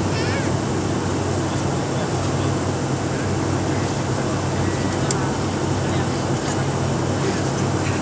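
Steady drone of an airliner cabin, with a single sharp metal click about five seconds in from a seatbelt buckle being handled.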